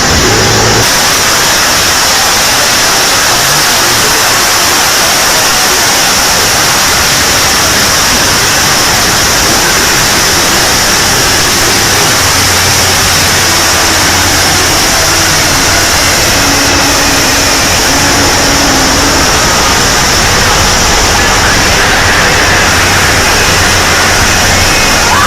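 A very loud, steady, harsh noise that fills the whole range from deep to high, with a hissing band high up, unbroken throughout.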